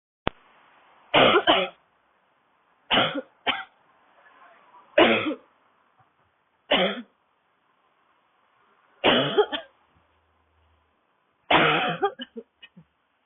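A woman's dry, barking cough in six bouts about two seconds apart, each one or two hard coughs, the last trailing off into a few smaller coughs. A short click comes just before the first bout.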